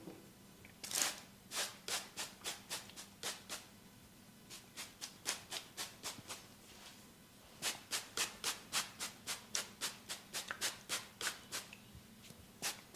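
A barber's hands briskly rubbing a person's head and neck in a massage. The swishing strokes come about three a second, in runs broken by short pauses.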